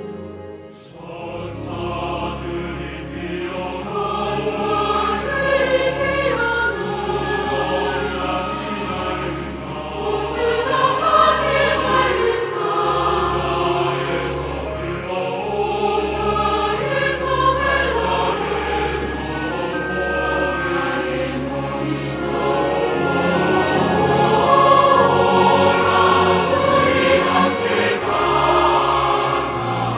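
Large church choir singing a Korean hymn with orchestral accompaniment, violins among it. After a short dip right at the start, the music builds and stays full.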